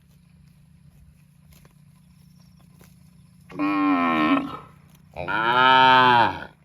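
A cow mooing twice: a call of about a second, then a longer, louder one whose pitch rises and falls.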